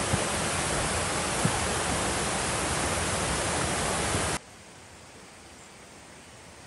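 Steady rush of running stream water, cut off abruptly about four and a half seconds in, leaving only a faint hiss.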